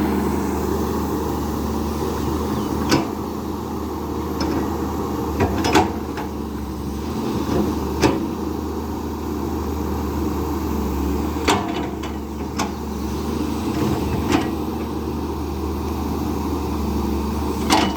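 Volvo EC200B excavator running steadily at working revs, its diesel engine humming under load. Short metallic clanks from the bucket and arm come every second or few seconds.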